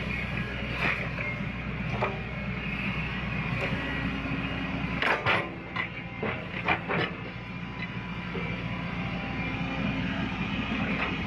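CAT excavator's diesel engine running steadily under load, with a cluster of sharp knocks about five to seven seconds in.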